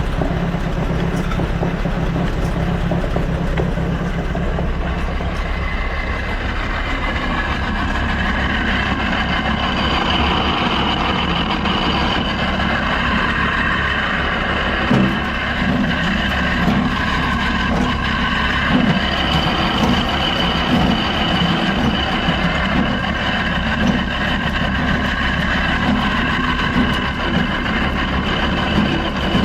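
1948 Allis-Chalmers C tractor's four-cylinder engine running steadily, turning a feed grinder through a flat belt off its belt pulley. From about seven seconds in, a higher whirring joins the engine sound. The belt is barely staying on the grinder's pulley.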